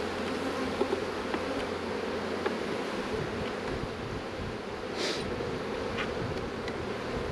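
Honeybees buzzing in a steady hum over an open hive, with a few light clicks of a metal hive tool against the wooden frames and a short hiss about five seconds in.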